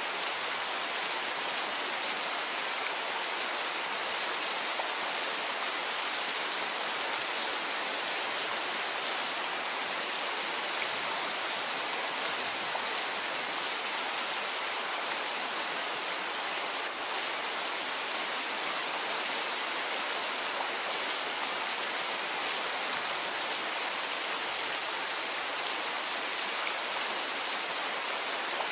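Steady rain falling, a dense even hiss with no thunder. There is a momentary dip in level about two-thirds of the way through.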